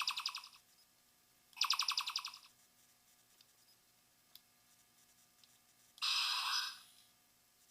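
Electronic sound effect played from a Wand Company Star Trek phaser replica on dial setting 7: two short, rapidly pulsing chirps about two seconds apart, then a longer hissing burst about six seconds in. It is a starship sound effect, not a hand-phaser firing sound.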